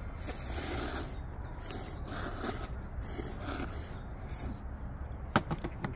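Several people slurping hot instant ramen noodles, in repeated noisy draws with short gaps between them. A few sharp clicks come near the end.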